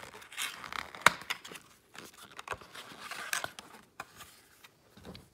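Cardboard packaging being handled as the insert is lifted out of the box: light scraping and rustling of cardboard with scattered sharp clicks, the loudest about a second in.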